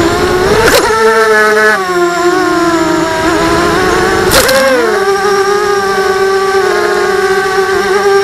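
Racing quadcopter's electric motors and propellers whining up close, from a camera carried on the craft. The pitch swoops with the throttle, then holds steady for the last few seconds, with two short rushes of noise, under a second in and about four seconds in.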